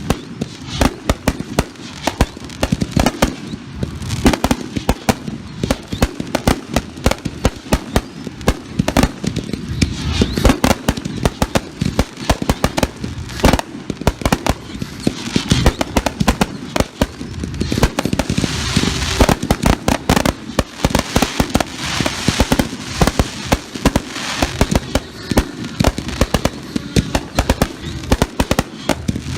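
Fireworks finale barrage: a dense, unbroken run of launches and bursting reports, many each second.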